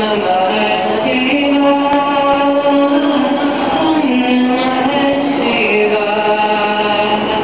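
Street musician's performance: a slow melody of long held notes, gliding between pitches, over a steady low drone.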